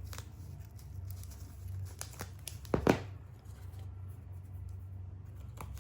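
Packaging being crinkled and torn open by hand, with a louder sudden rip about three seconds in, over a steady low hum.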